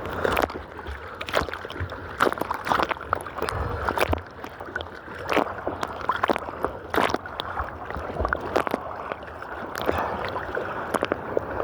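Sea water sloshing and splashing right against a camera strapped to a swimmer, with irregular sharp splashes every second or so.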